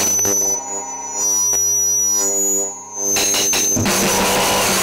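Noisecore recording: the harsh wall of noise breaks off for about three seconds into a steady, droning pitched tone with a thin high whistle above it, then the harsh noise crashes back in near the end.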